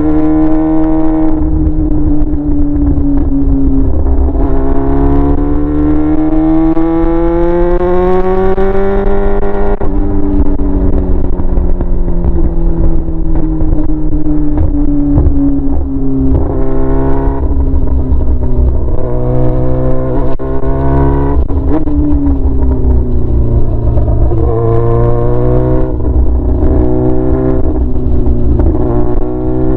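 Yamaha R6's inline-four engine, straight-piped with no muffler, revving up and down under riding: a long climb in pitch that breaks off about ten seconds in and falls away, then several shorter climbs and drops.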